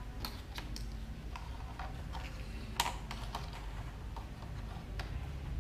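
Plastic toy dishes and bowls being moved and set down on a tabletop: a scatter of light, irregular clicks and taps, with one sharper knock about three seconds in.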